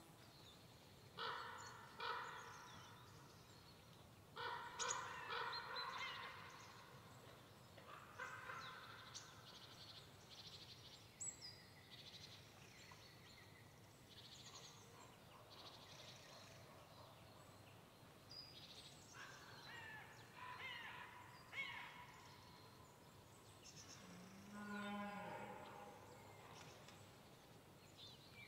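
Crows cawing in short runs of harsh calls, scattered through a faint, otherwise quiet pine-forest background, with one lower, drawn-out call near the end.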